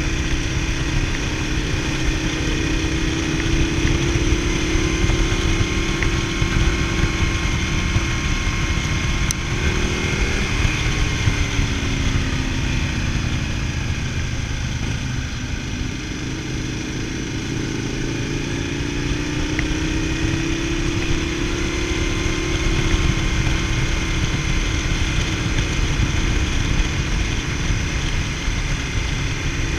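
Motorcycle engine under way on the move, heavy wind rumble on the microphone. The engine note holds steady, drops in pitch about a third of the way in as the bike slows, then climbs again.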